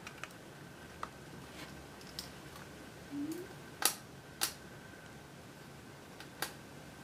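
A handful of small, sharp clicks spaced irregularly over several seconds: the stiff locking tabs of flat flex cable connectors on the CD player's circuit board being pried open with a small screwdriver.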